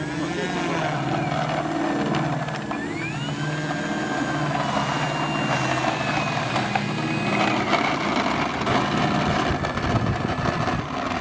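Brushless electric motor and propeller of an E-flite Carbon-Z Cessna 150 model plane running at taxi throttle. The whine rises and falls with the throttle, climbing about three seconds in and easing off near eight seconds.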